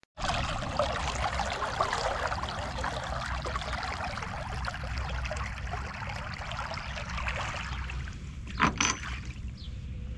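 River water splashing and rushing around bare feet trailed from the side of a moving sailboat, dying away after about eight seconds. Near the end comes one short loud sound, then faint bird chirps.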